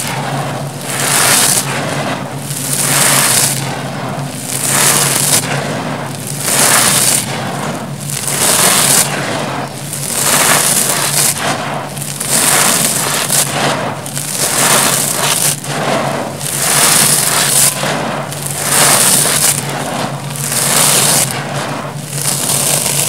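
Dry crushed concrete gravel and grit crunching and pouring through cupped hands, a crackly hiss that swells with each scoop about every one and a half seconds.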